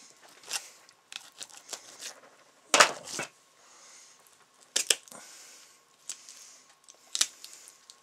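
Knife cutting through the fin rays of a walleye skin: irregular sharp snaps and crackles, the loudest about three, five and seven seconds in.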